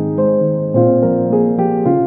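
Instrumental piano music, notes and chords struck in a flowing, steady pattern.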